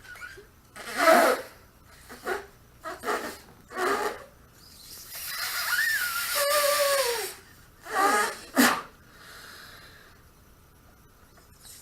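Hard puffs of forced air, one after another, as someone struggles to inflate a long twisting balloon that won't fill. The longest puff, in the middle, carries a squeaky tone that rises and then slides down.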